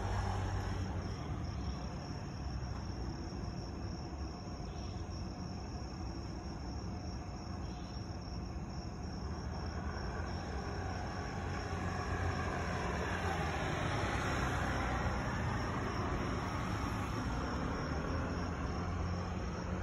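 Roadside night ambience: a steady low traffic rumble, with a car passing that swells louder about twelve seconds in and fades toward the end, over a steady chirring of crickets.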